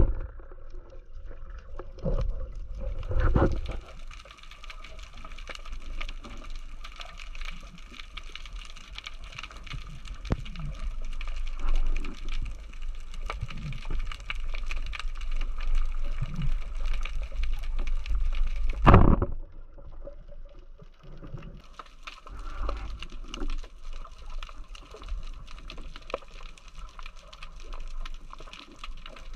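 Underwater sound picked up by a camera in its housing: a steady fine crackle over a low rumble of moving water, with irregular low thumps and one loud short thump about two-thirds of the way through.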